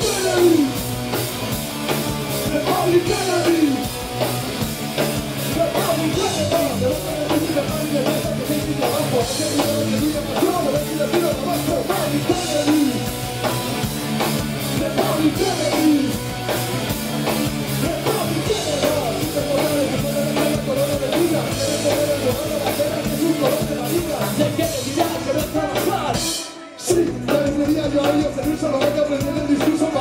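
Live rock band playing, with vocals sung into microphones over drums. The music stops dead for about half a second near the end, then the band comes back in.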